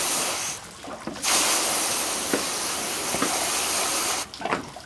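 Garden-hose spray nozzle spraying water over a freshly scaled flounder on a cutting board, rinsing away the loose scales. A steady hiss that breaks off briefly a little over half a second in, resumes, and stops about four seconds in.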